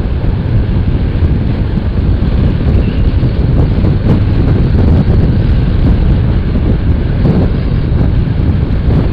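Wind rushing over the microphone of a motorcycle rider at highway speed, mixed with the bike's engine and road noise. It is steady, loud and slightly distorted.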